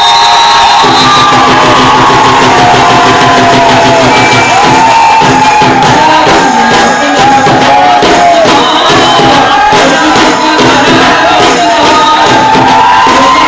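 Loud bhangra music with a steady beat, a drone and a sliding melody line, with a crowd shouting and cheering over it.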